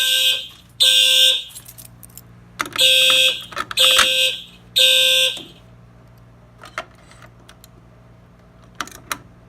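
Fire alarm horn sounding in the temporal-three evacuation pattern: groups of three short, loud blasts, a new group starting about two and a half seconds in. It stops about five and a half seconds in, leaving a few faint clicks near the end.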